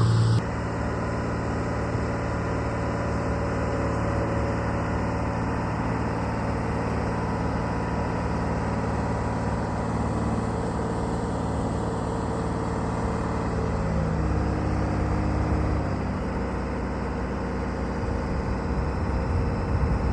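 Diesel engine of a Case 125B excavator running steadily, its note shifting about fourteen seconds in as the machine is worked.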